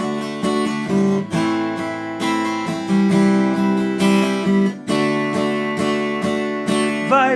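Taylor 114e acoustic guitar strumming chords in a steady rhythm between sung lines, with a singing voice coming back in right at the end.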